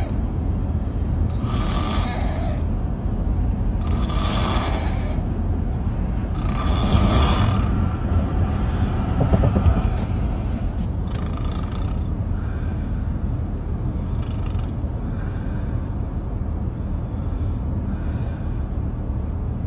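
A person snoring, with rhythmic breaths about every two and a half seconds that are strongest in the first half and grow fainter later, over a steady low rumble.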